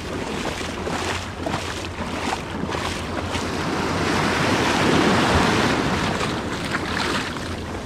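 Ocean surf washing up the beach: a wave breaks and its foam rushes in over the sand, building to its loudest about halfway through and then ebbing.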